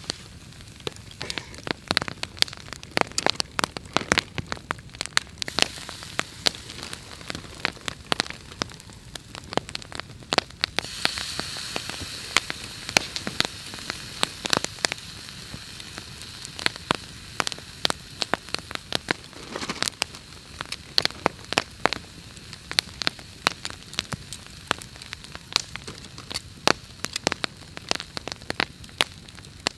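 Large log campfire crackling, with many sharp, irregular pops and snaps over a steady hiss. The hiss swells louder for a couple of seconds about eleven seconds in.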